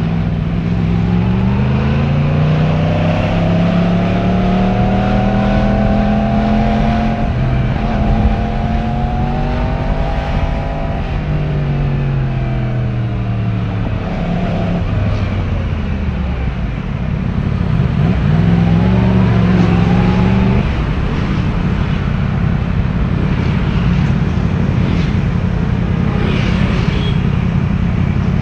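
Yamaha YZF-R1 1000cc inline-four engine through its stock exhaust, ridden on the road. It revs up through the gears, eases off about halfway through, picks up again, then holds a steady cruise.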